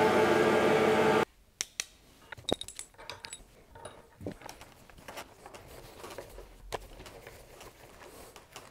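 Metal parts of a cast-iron machine vise clinking and knocking as it is put back together by hand: scattered sharp clicks with a few louder knocks. Before them, a steady loud hum cuts off abruptly about a second in.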